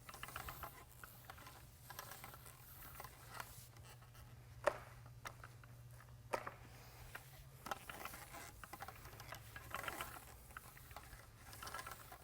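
Paint roller rolling wet water-based polyurethane topcoat across a concrete floor: a faint, irregular sticky patter, with a couple of sharper clicks.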